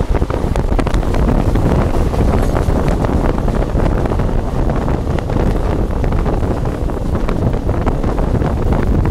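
Wind buffeting the microphone held out of a fast-moving passenger train, over the train's steady running rumble and rattle.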